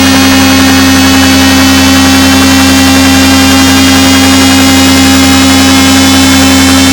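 Synthesized helicopter sound effect imitating a turbine engine and rotor: a loud, steady drone of several constant tones over hiss, with no distinct blade chop.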